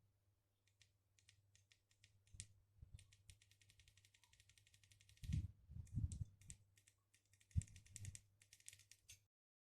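Faint handling noise: scattered small clicks, a run of rapid even clicking, and a few soft thumps, then the sound cuts off suddenly near the end.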